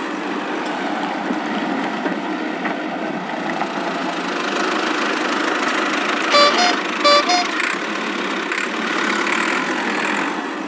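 A cartoon vehicle engine sound effect running steadily. Two short horn honks come about six and seven seconds in.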